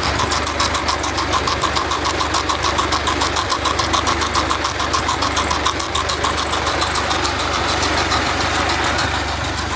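An engine running steadily with a quick, even pulse, easing off slightly near the end.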